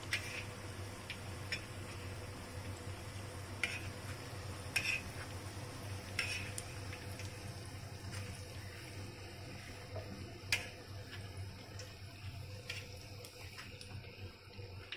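Spring rolls deep-frying in hot oil in a wok, a steady sizzle, with now and then a sharp click of metal tongs against the wok or the rolls as they are turned.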